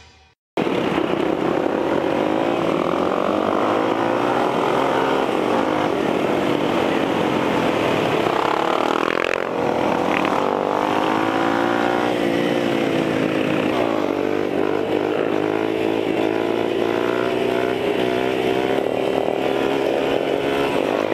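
Motorcycle engines running on the road, their pitch rising and falling over and over as the throttle opens and closes through the gear changes. The sound starts abruptly after half a second of silence.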